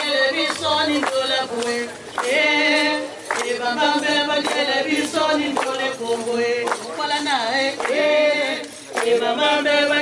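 A woman's voice leads a group singing a repeated traditional song, with a woven basket rattle shaken in time.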